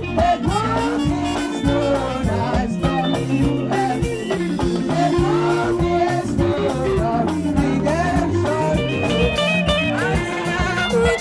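Music with a singing voice over a plucked guitar and a bass line.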